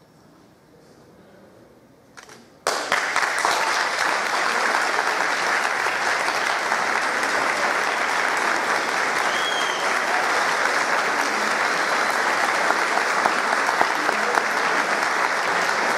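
A short hush after the orchestra's final chord, then the audience breaks into applause about two and a half seconds in. The clapping holds steady and dense to the end.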